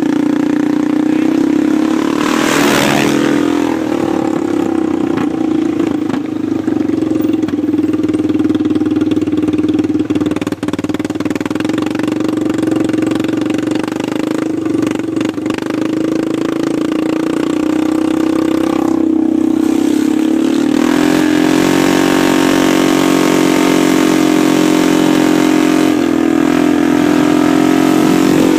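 Motorcycle engine running steadily while riding along a road, heard from on the bike. The engine note gets fuller about 21 seconds in, and there is a brief rush of noise about three seconds in.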